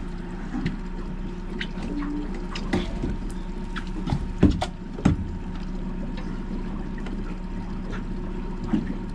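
Outboard motor running steadily, with water splashing and lapping against an aluminium boat hull. Scattered light clicks, and two louder knocks about halfway through.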